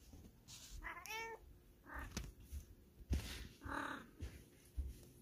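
A cat meowing three short times, about one, two and nearly four seconds in. A sharp tap or knock comes just after three seconds.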